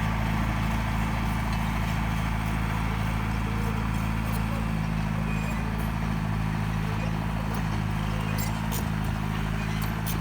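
Bulldozer's diesel engine running at a steady speed, with a few sharp clicks near the end.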